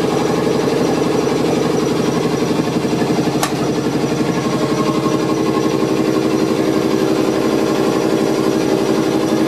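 Auxiliary machinery of a class 451 electric multiple unit running in the driver's cab during startup: a steady hum with a fast, even pulse. A single sharp click sounds about three and a half seconds in.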